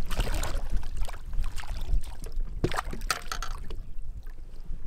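A hooked bass thrashing and splashing at the surface beside the boat, in a string of irregular sharp splashes over a low steady rumble.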